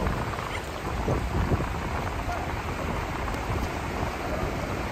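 Wind buffeting the phone's microphone over the wash of small waves breaking on a sandy beach, a steady, rumbling roar.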